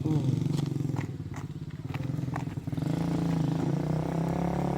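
110cc pit bike's single-cylinder four-stroke engine running while being ridden on a newly fitted carburettor, getting louder about three seconds in.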